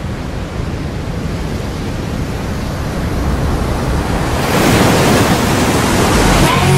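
A steady rushing noise, like wind or surf, that swells louder about four and a half seconds in.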